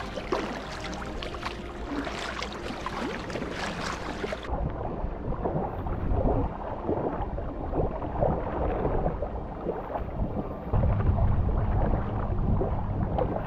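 Kayak paddle strokes dipping and splashing, with water washing and slapping against the hull of a sea kayak moving through choppy open water. About four and a half seconds in, the hiss of the water suddenly thins. Near the end a louder low rumble comes in.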